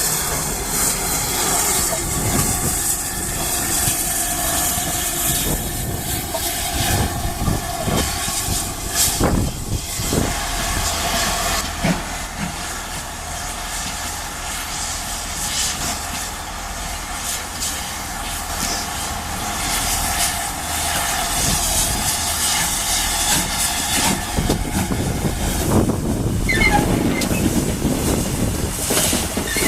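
Steam locomotive on a preserved railway, steam hissing steadily, with scattered clicks and knocks of wheels and rails. The sound eases a little midway and grows louder again near the end.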